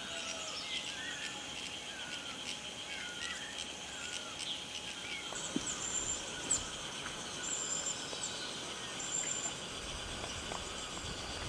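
Outdoor ambience of birds calling in short chirps and whistles over a steady high buzz of insects. A low rumble comes in near the end.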